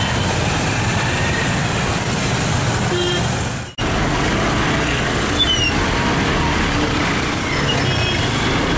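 Busy outdoor street ambience: a steady rumble of road traffic mixed with people's voices. The sound cuts out briefly about four seconds in.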